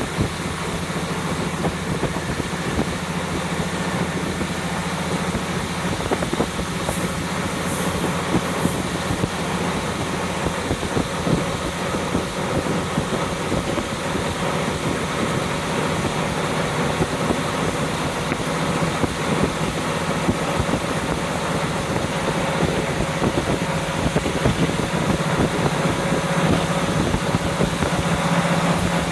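Inside a JR Hokkaido KiHa 40 diesel railcar under way with a window open: the diesel engine's steady drone, wheels clattering on the rails, and wind rushing in through the open window. A few brief high hisses come about seven to nine seconds in.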